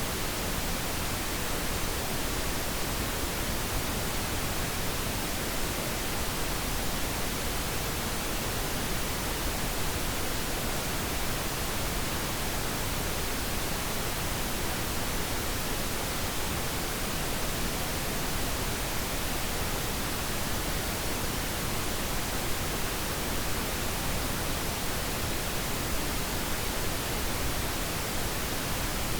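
Pink noise: a steady, even hiss spread across all pitches, unchanging throughout, played as a sleep aid for babies.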